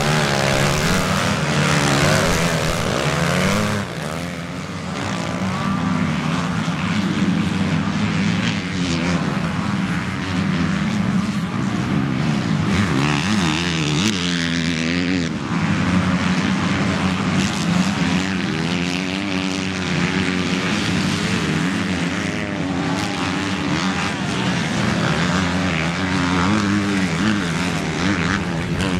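Motocross bikes racing on a dirt track, their engines revving up and down as they pass and power out of the corners, over a steady drone from other bikes around the circuit.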